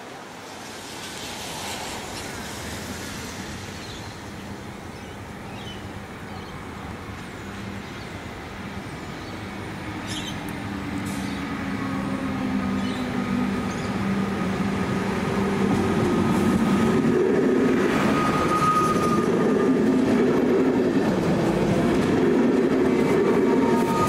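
Comeng electric multiple-unit train approaching on the track and passing close by, growing steadily louder, with a steady hum and faint higher tones from the train as it nears.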